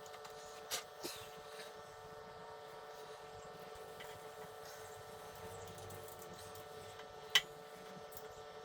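A few short, sharp clicks and taps of hands working on the motorcycle's front brake calipers and fork: two about a second in and a louder one near the end. A steady faint hum runs underneath.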